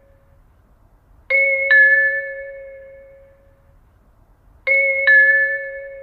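Eiraku-type station announcement system's two-tone train approach chime, in a low-quality recording: a falling two-note ding-dong struck twice, each pair of notes ringing out and fading. It signals that a train is approaching the platform.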